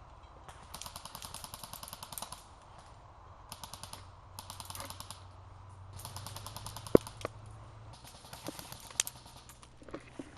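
Airsoft guns firing full-auto bursts: about six short bursts of rapid clicking shots with brief gaps between them. Two single sharp cracks stand out, about seven and nine seconds in.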